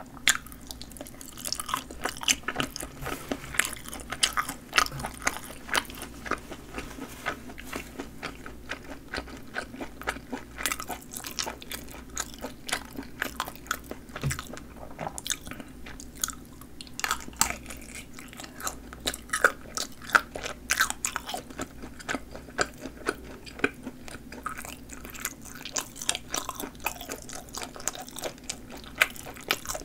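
Biting and chewing of sausages with snappy casings, a dense run of sharp snaps and wet clicks.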